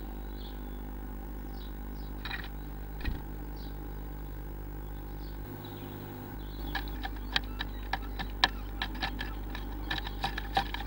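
Quick run of sharp taps and scratches of a blue tit's claws and beak on the wooden nest box, starting about seven seconds in, over a steady low electrical hum.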